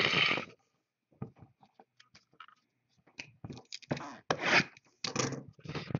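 Hands handling and sliding a sealed cardboard trading-card box on a tabletop: scrapes and rustles in short bursts with a few faint clicks between them, the loudest about a second and a half before the end.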